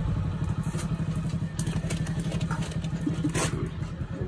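An engine running with a steady, low, fast-pulsing rumble, with a few short clicks over it.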